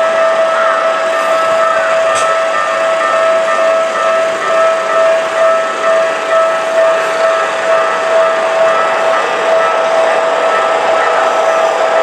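Railway level-crossing warning alarm ringing, a steady-pitched tone repeating without pause, with the noise of a train running through the crossing building up from about a third of the way in.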